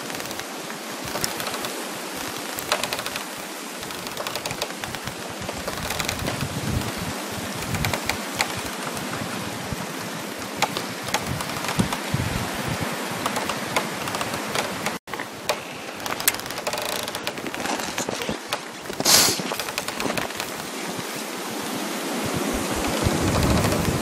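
Winter outdoor ambience: dense crackling over a steady rush of wind and rustling trees. The sound cuts out for an instant a little past halfway, and a louder, hissing crackle stands out near the end.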